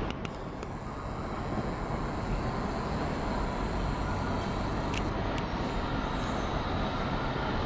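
Steady low rumble of vehicle noise, with a few faint clicks about five seconds in.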